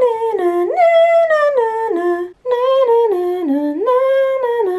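A woman's voice singing a wordless tune, two short phrases with a brief break about halfway through, each stepping downward in pitch note by note.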